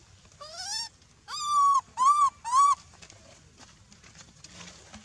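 A young macaque giving four high, clear calls in quick succession: a rising one, a longer level one, then two short arched ones.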